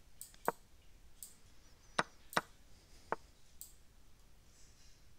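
Online chess piece-move sound effects and mouse clicks during fast blitz play: four sharp taps, one about half a second in, two close together around two seconds and one just after three seconds, with a few fainter clicks between.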